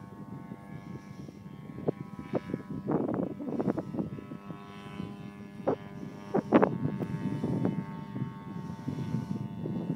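Distant propeller tow plane running steadily as it tows a glider aloft, a faint even engine tone. Irregular swells of wind noise on the microphone come and go over it, loudest about a third of the way in and again past the middle.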